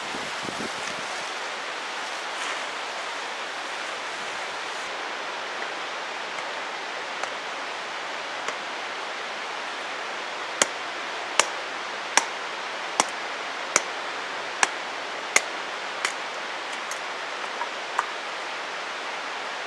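Steady rush of a mountain stream. About halfway through, a run of eight sharp knocks comes roughly 0.8 s apart, with one more near the end.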